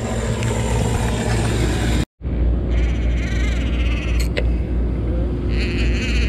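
A boat's engine running at idle, a steady low rumble that drops out for a moment about two seconds in. Faint wavering high-pitched cries come over it a few times in the second half.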